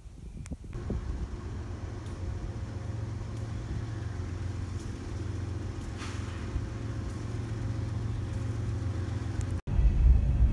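Diesel locomotive of an approaching train on the adjacent track, its engine running with a steady low hum and a growing hiss as it nears. Near the end the sound drops out for an instant and gives way to a louder, heavier low rumble.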